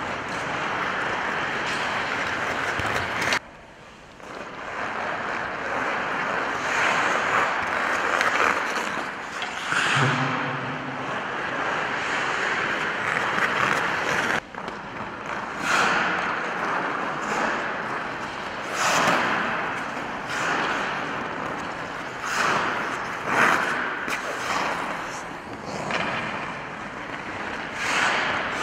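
Hockey skate blades carving and scraping across rink ice, in repeated surges of scraping. The sound drops out briefly about three and a half seconds in.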